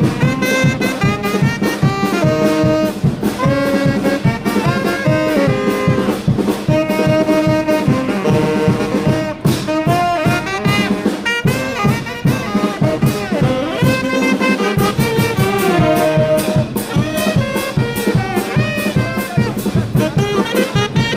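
Brass band music: trumpets and trombones playing a melody over a steady drum beat.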